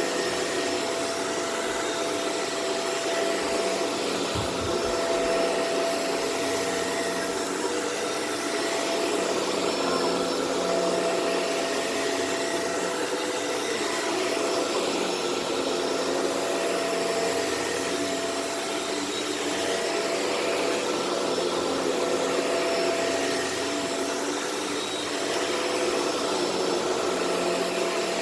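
Shark Rotator Powered Lift-Away upright vacuum running steadily on carpet: a constant motor hum and rushing airflow that swells and eases a little.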